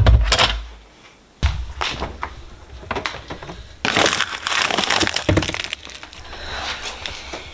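A knock as a slow cooker's pot and lid are handled at the start, then rustling and crackling about four seconds in as a frozen zip-top bag of meat is pulled from among other frozen packages in a freezer.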